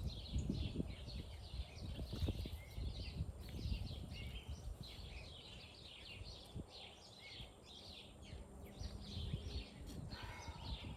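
Songbirds chirping in a dense, continuous chorus, with scattered soft low thumps and rustles of soil being dug and handled.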